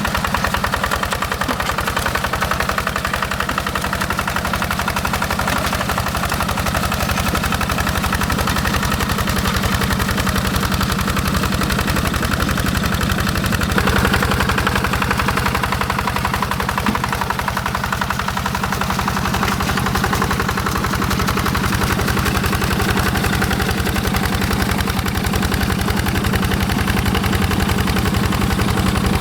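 Single-cylinder Yanmar diesel of a Quick G1000 hand tractor running steadily with a fast, even chugging beat. Its tone shifts a little about halfway through.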